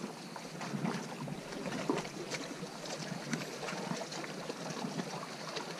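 Small waves lapping against a rocky shore, with wind on the microphone and a few faint ticks.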